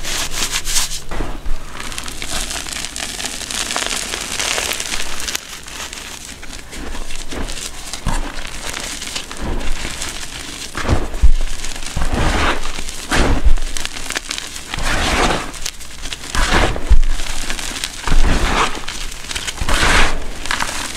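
Hands squeezing, crumbling and pressing into a bowl of powdered gym chalk: soft crunching and hissing of falling powder, irregular throughout, with dull thumps in the second half.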